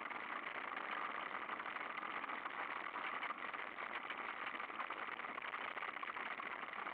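Mountain bike rolling over a gravel track: a steady, grainy crunch of tyres on loose stones, with the bike rattling.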